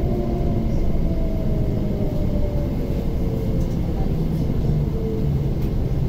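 Inside a moving MTR SP1900 (IKK-train) electric multiple unit: a steady low rumble of wheels on rail, with a faint motor whine that glides slowly down in pitch as the train slows alongside a station platform.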